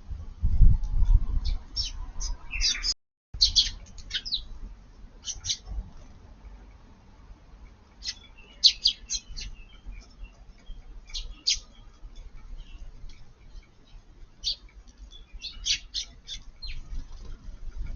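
Eurasian tree sparrows chirping, short high chirps in scattered clusters. Low thumping rumble in the first couple of seconds, and the sound cuts out briefly about three seconds in.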